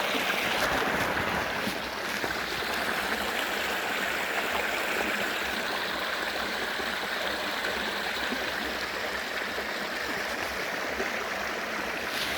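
Steady rush of running water, even throughout and dipping slightly a couple of seconds in.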